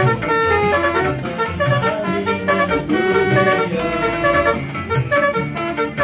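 Bus telolet horn, a set of multi-tone air horns, playing a fast melody of short honked notes that jump from pitch to pitch.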